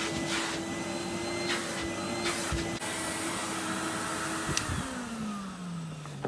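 Numatic Henry vacuum cleaner running steadily with a few light knocks. About four and a half seconds in there is a click, and the motor winds down, its hum falling in pitch.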